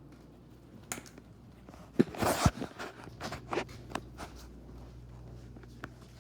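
Rummaging by hand through a container: scattered clicks and knocks, with a short rustle and thud about two seconds in, over a low steady hum.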